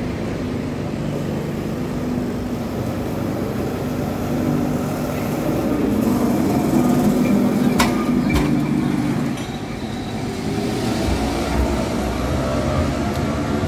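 Vintage-style Lisbon street tram running past close by, its electric motor humming steadily over the rumble of steel wheels on the track. Two sharp clicks come about eight seconds in, and a rising whine follows near the end.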